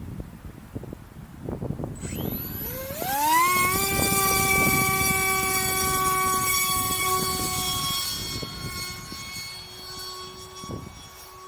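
The electric motor and propeller of a small RC flying wing spool up with a steeply rising whine, then hold a steady high whine. The whine eases off and grows quieter later on, over gusty wind noise on the microphone.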